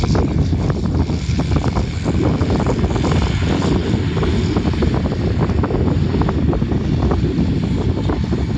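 Wind buffeting the microphone in a steady rumble with frequent crackles, over the distant drone of a tractor pulling a roller drill.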